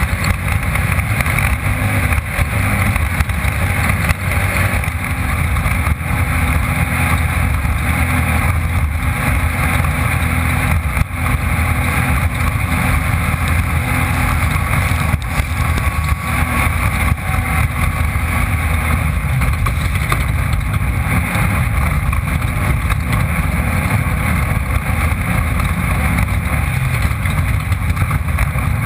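Off-road race car's engine running hard at steady speed, loud and unbroken, with many small knocks from the car bouncing over rough ground, heard through a camera mounted on board.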